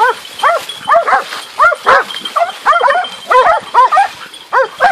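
A pack of hunting dogs barking hard at a wild boar: quick, overlapping yelping barks from several dogs, about three or four a second. This is the steady barking of hounds that have found and are baying the quarry.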